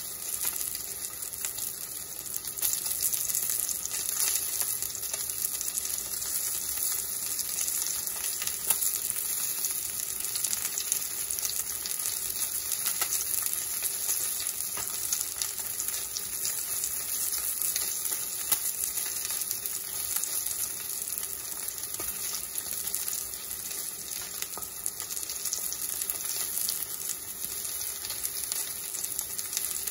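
Salmon fillet frying in hot oil in a cast-iron skillet: a steady sizzle with fine spitting crackles.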